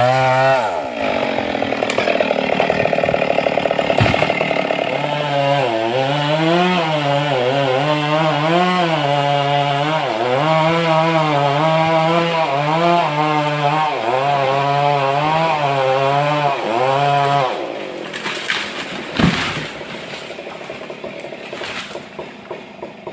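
Stihl MS 382 two-stroke chainsaw running hard in a cut, its engine note dipping and recovering again and again as the chain loads in the wood. About seventeen seconds in the saw's sound falls away. A loud thump follows a second or so later, then a quieter, pulsing engine sound.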